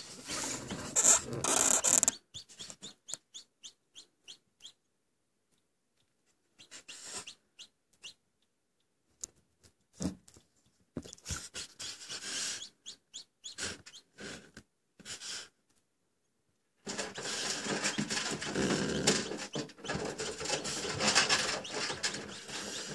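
Scratching, rustling and short clicks of a newly hatched, still-wet chick struggling among broken eggshell on the incubator's mesh floor. The sounds come in scattered short bursts with near-silent gaps about five seconds in and again near the two-thirds mark, then turn into a denser, steadier stretch of rustling for the last six seconds.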